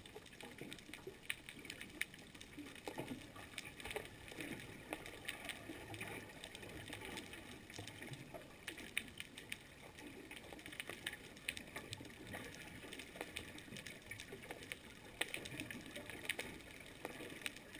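Underwater ambience picked up by the camera: a steady hiss with many irregular sharp clicks and crackles scattered throughout.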